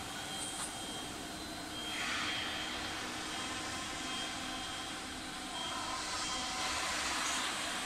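Steady factory-floor machinery noise: an even hiss and hum, with a brief swell of hiss about two seconds in and another near the end.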